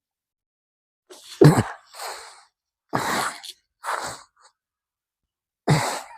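Five short, forceful puffs of breath from a person moving into the yoga plough pose (halasana), the loudest about a second and a half in.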